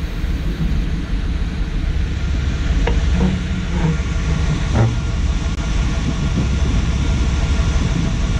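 A vintage Ford pickup on the move, heard from its bed: a loud, steady rumble with a hiss over it.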